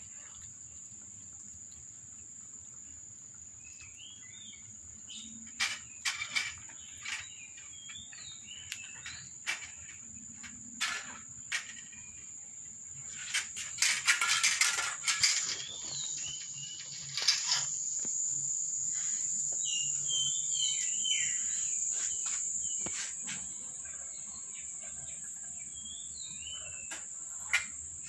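A steady high-pitched insect drone, with short bird chirps now and then, scattered clicks and taps, and a louder burst of rustling noise about halfway through.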